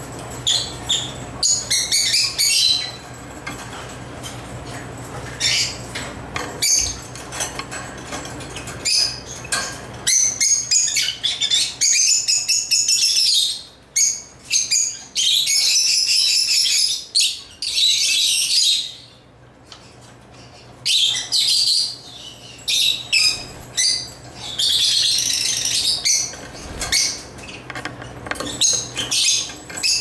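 Lovebirds chirping in high-pitched runs of rapidly repeated notes, several long bouts broken by short pauses.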